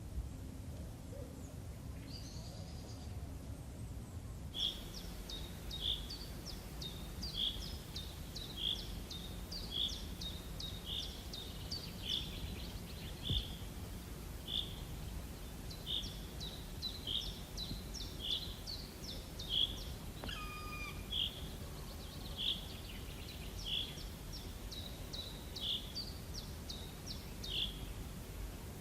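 A bird repeating one short, high call over and over, about once every 0.7 seconds, over a steady low background rumble. Around two-thirds of the way through, a single longer call glides down in pitch.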